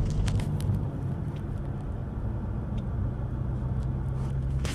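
Car engine running steadily, heard from inside the cabin as a low, even hum. A few light clicks near the start.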